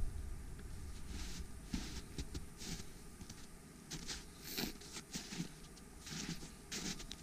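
Faint footsteps in snow at a walking pace, roughly two steps a second.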